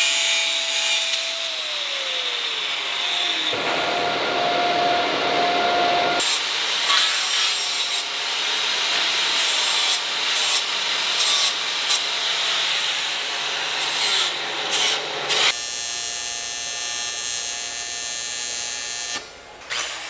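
Handheld angle grinder cutting and sanding aluminum trim and diamond plate, in several passes; the motor's whine drops in pitch once about two seconds in and changes between passes.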